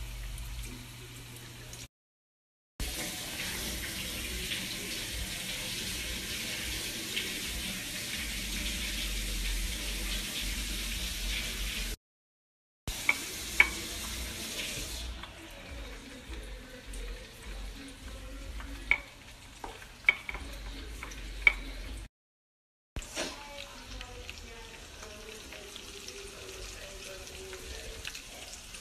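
Breaded chicken breasts frying in shallow oil in a pan, a steady sizzling hiss. It comes in several short clips broken by brief silent cuts, and the longest one, early on, is the loudest. A few sharp clicks of handling fall in the middle.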